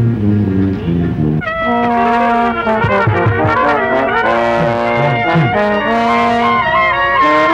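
Marching band brass playing. A low bass line sounds alone at first, then about a second and a half in the full brass section comes in with held chords, with some sliding notes low down like trombone slides.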